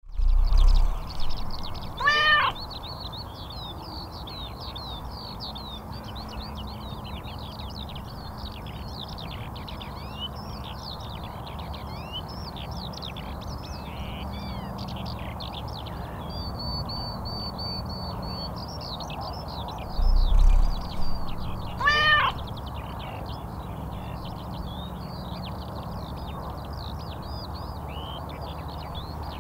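A domestic cat meowing in short series, a few calls near the start and the same again about twenty seconds in, the last of each series a clear rising meow. Continuous chirping birdsong runs beneath.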